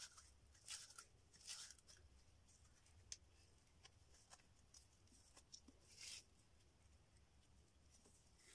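Faint rustling and scratching of dry plant fibre being twisted into cord by hand, with a few short soft swishes and one tiny click about three seconds in.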